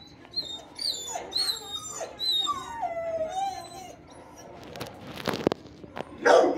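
Shelter dogs whining and yelping in high, sliding cries, with one longer whine that falls in pitch. A short rattling noise comes about five seconds in, and a loud bark near the end.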